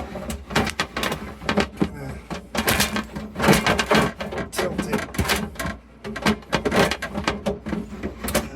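Repeated clattering and knocking, plastic and glass fridge parts and items being handled, slid and set back into a refrigerator, many short sharp knocks in quick succession.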